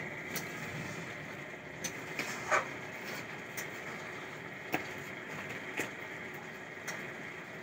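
Steady background hiss with a faint high hum, and a few scattered light taps and clicks from stiff laminated picture charts being handled and turned.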